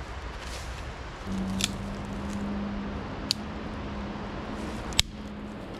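Sharp snaps of small pine branches and twigs being broken off a young pine by hand: three distinct cracks, the last the loudest. A steady low hum sets in just over a second in.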